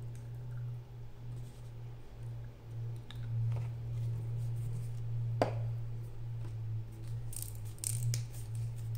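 Small handling sounds of painting supplies: one sharp click about five and a half seconds in and brief scratchy rubbing near the end, over a steady low hum.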